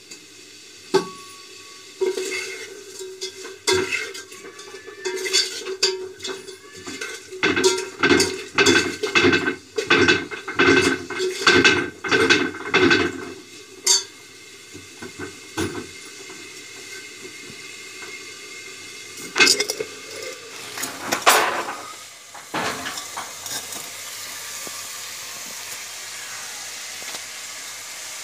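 Steel utensils clinking and scraping in a steel pot of fish curry: a cup and a spoon stirring and knocking against the pot, which rings after each knock. A run of clinks for about twelve seconds, a few louder knocks later, then a steady hiss near the end.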